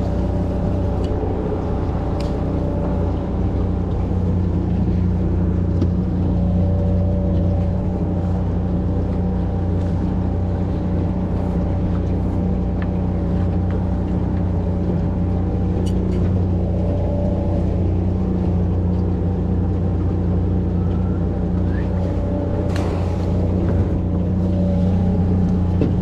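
Boat's outboard motor running at a steady speed, a constant low hum with no change in pitch.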